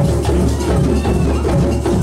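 A drum circle of djembes and other hand drums played together in a dense, steady groove, with many overlapping strokes.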